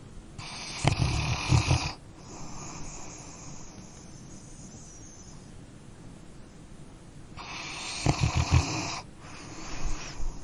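Sleeping dog snoring. There are two long, rattling in-breaths about seven seconds apart, and each is followed by a softer, airy out-breath.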